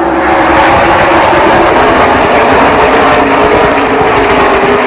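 A pack of NASCAR stock cars with V8 engines passing at racing speed on the first lap. Loud, dense engine noise that swells at the start and eases off near the end as the field goes by.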